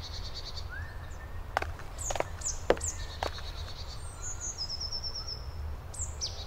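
Woodland birds singing, with high falling whistles and a fast high trill, over a steady low rumble. About five sharp clicks come between one and three and a half seconds in.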